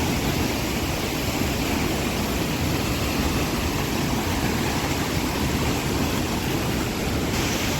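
Steady rushing roar of a waterfall, water pouring down without a break.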